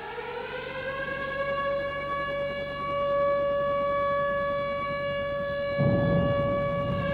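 A siren finishing its rise in pitch, then holding one steady tone. About six seconds in, a low rushing noise joins it.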